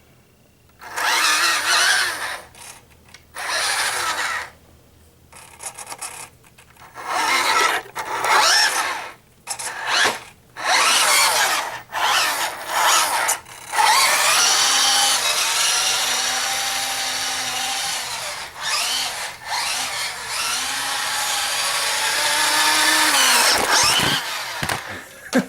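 Small electric motor and gearbox of a 1/12-scale 6WD RC military truck whining as it is driven, first in about seven short bursts of throttle, then running without a break for about ten seconds before stopping near the end.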